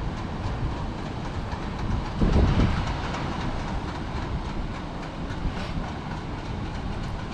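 Steady rushing roar of water pouring over a dam spillway, with a brief louder low rumble about two seconds in.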